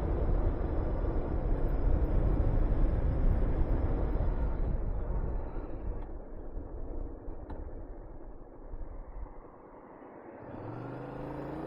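Wind rushing over the microphone on a moving Honda VTR250, dying away over several seconds as the bike slows. Near the end its V-twin engine picks up revs again with a rising tone as it accelerates.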